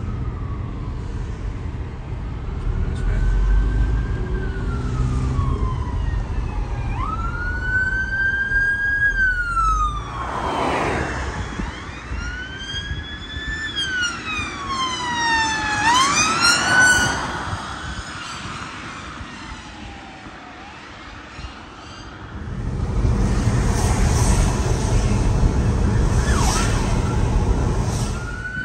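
Emergency vehicle siren in wail mode: slow sweeps rising and falling in pitch, growing loud about a third of the way in and again around halfway, where the pitch bends sharply down as the vehicle passes. A loud rushing road noise fills the last few seconds.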